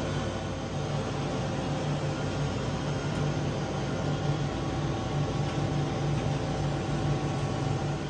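Steady low hum and fan hiss of refrigerated vegetable display cases running, even throughout with no sudden sounds.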